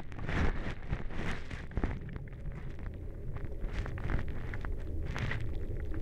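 Underwater sound from a hydrophone dipped in a shallow pond full of frog spawn: a low rumble with scattered clicks and knocks from the hydrophone moving in the water. Nothing can really be heard from the frog spawn itself.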